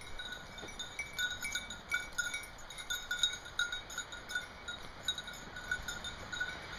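A small bell on a dog's collar ringing irregularly, two or three strikes a second, as the dog moves.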